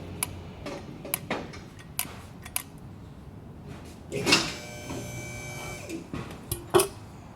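Handling noises: a scatter of light clicks and knocks, a louder scrape about four seconds in followed by a brief faint ringing, and a sharp click near the end.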